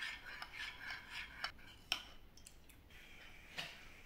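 Metal spoon stirring cornflour and water in a glass bowl, clinking lightly against the glass in a run of small clicks, with the sharpest clink about two seconds in. Fainter after that, with one more knock near the end.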